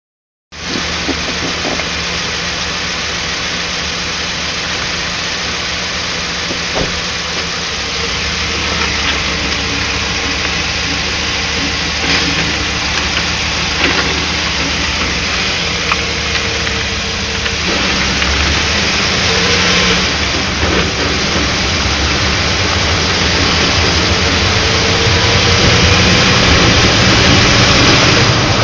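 Vehicle on King off-road coilover shocks driving, with steady engine and road noise that slowly gets louder, and a few sharp knocks from the suspension scattered through it: the shocks are making noise.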